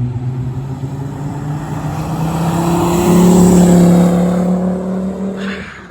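1997 Volvo 850 T5's turbocharged inline five-cylinder through an OBX turboback exhaust, accelerating past: the engine note climbs in pitch and grows louder, peaks about three to four seconds in, then fades away.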